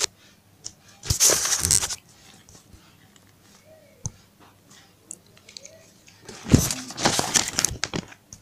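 Rustling, crinkling handling noise in two bursts, one about a second in and a longer one near the end, with a sharp click in between.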